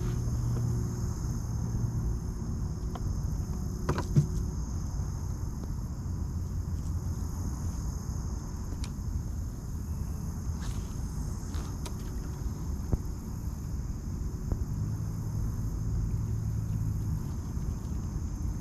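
Low wind rumble on the microphone under a steady high drone of insects, with a few sharp clicks, the loudest about four seconds in.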